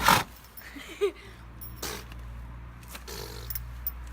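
A pony blowing a sharp, sneeze-like snort out through its nostrils right at the start, answering a person blowing into its nose. A shorter, fainter blow follows nearly two seconds in.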